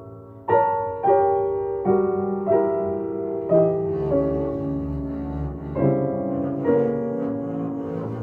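Acoustic piano playing a slow jazz-ballad passage: chords struck about once a second and left to ring.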